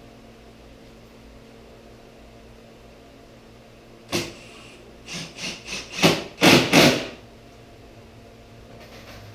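Cordless drill driving a construction screw into wood: a knock, then a quick run of about six short bursts of the driver over two seconds, the last ones loudest, over a steady background hum.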